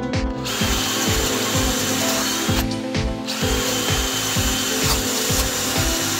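DeWalt cordless drill boring into timber, starting about half a second in, easing off briefly near the middle, then running again. Background music with a steady beat plays underneath.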